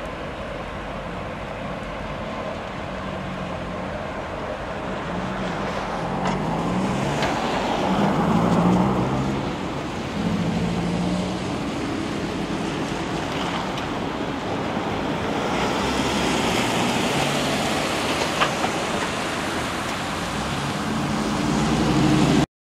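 Two diesel-electric locomotives running light, a Norfolk Southern GE ES44AC leading a Union Pacific EMD SD70ACE, working hard under high throttle as they approach and pass: a steady engine drone over a broad rumble that swells and eases, louder in the middle and again near the end, then cuts off abruptly.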